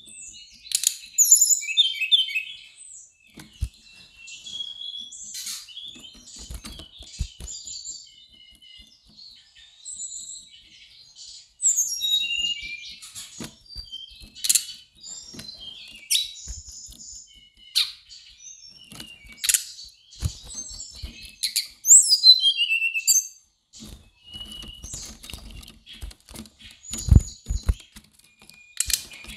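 Brown-chested jungle flycatcher singing in short, varied bursts of high chirps and trills, repeated every few seconds, with a few soft knocks in between.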